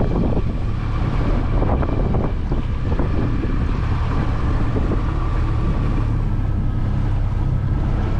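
Small boat's motor running steadily as the boat moves over the water, a constant low hum, with wind buffeting the microphone.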